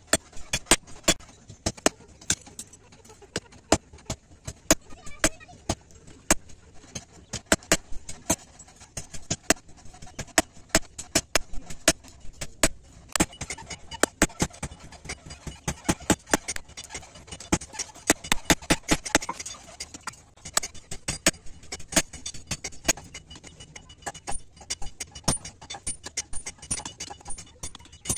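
Hammer blows on a red-hot billhook blade lying on a steel block anvil as it is forged: sharp metallic strikes, two or three a second in an uneven rhythm.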